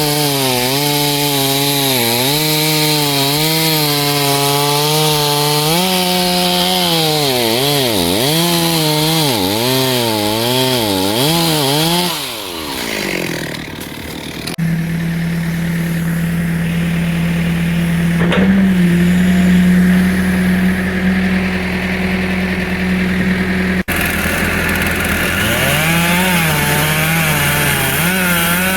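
Two-stroke chainsaw running and cutting wood: its engine speed rises and falls repeatedly for the first dozen seconds, dips, then holds steady at high revs for about ten seconds before wavering again near the end.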